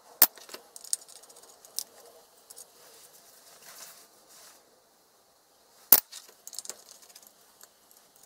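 Metal chassis and parts of a Collins altitude controller knocking and clicking as the opened unit is handled and turned over. Two sharp knocks about six seconds apart are the loudest sounds, with lighter clicks and handling noise between them and a short lull before the second knock.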